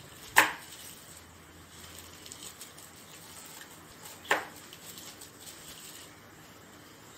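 Knife cutting an apple into cubes on a cutting board: two sharp knocks of the blade on the board about four seconds apart, each ringing briefly, with faint small cutting ticks between.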